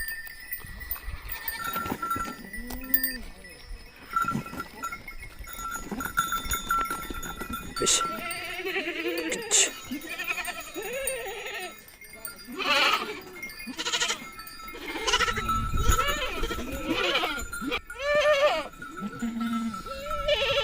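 A mixed flock of sheep and goats bleating, many separate calls one after another and overlapping, some low and some high-pitched, with the steady ringing of neck bells under them.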